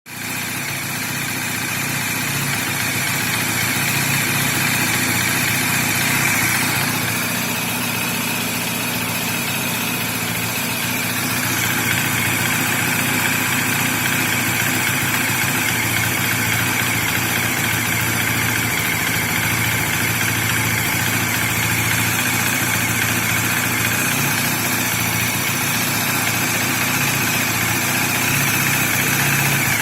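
Bajaj Dominar 400's single-cylinder engine running steadily at idle, with the mechanical noise from the engine that the owner says is completely normal for this bike.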